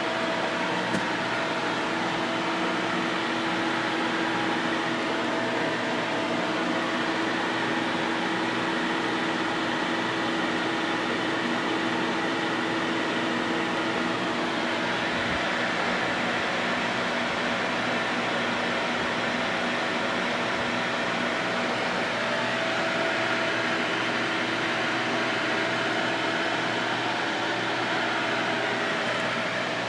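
Fans running steadily in a grow tent: a constant whir with a hum of several steady tones underneath.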